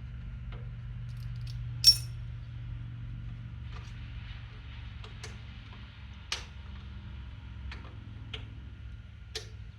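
Metal tools and parts clinking and tapping against each other in short, scattered strikes, the sharpest a ringing clink about two seconds in, over a steady low hum.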